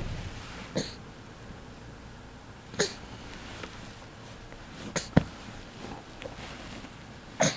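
A baby's short sniffs and snorts, a few scattered over several seconds, with one sharp knock about five seconds in.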